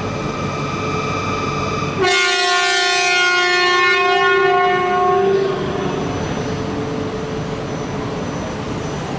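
E4 series Max Shinkansen sounding its horn at the platform for about three seconds, starting about two seconds in: one loud steady blast, the warning before departure.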